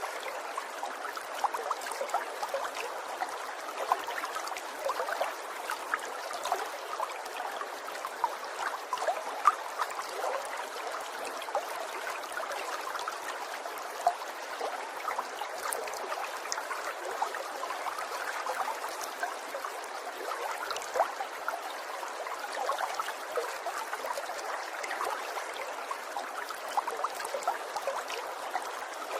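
Water trickling steadily, with many small, quick splashes and drips scattered through it.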